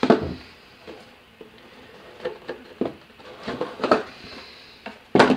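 Cardboard model-kit box being handled and its lid pulled off the inner tray: a series of sharp knocks and scrapes of cardboard at irregular intervals, loudest at the start and near the end.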